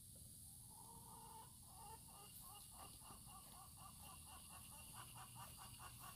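Near silence with a faint animal call in the background: a run of short repeated notes that begins about a second in and settles into a quick regular series of about five notes a second.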